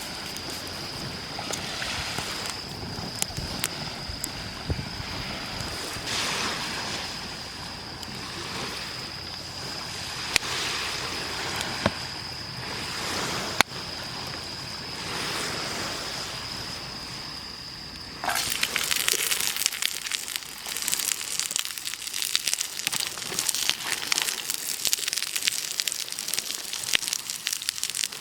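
Waves washing up on a beach, swelling and fading every few seconds under a steady high tone, with a few sharp clicks. About eighteen seconds in the sound cuts abruptly to dense, louder crackling.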